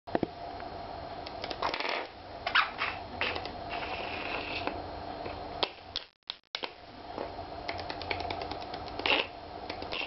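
A budgie playing, with bursts of quick clicking and rattling over a steady low hum. The sound cuts out briefly a little after the middle.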